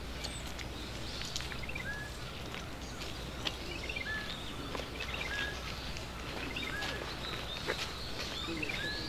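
Small birds chirping over steady low outdoor background noise. A short hooked call repeats about once a second, mixed with quick runs of falling notes, and a few faint clicks.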